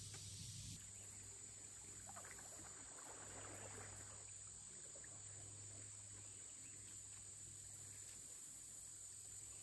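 Near silence: a faint steady background hiss and low hum, with some faint scattered rustling about two to four seconds in.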